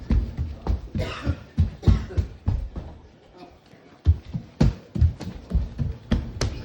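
An automated voice reading out an emergency alert message, with a pause of about a second roughly three seconds in.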